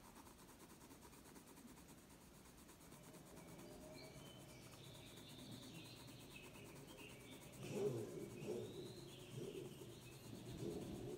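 Coloured pencil shading on paper: a faint, soft rubbing of the pencil point in short strokes, louder and more uneven from about two-thirds of the way in.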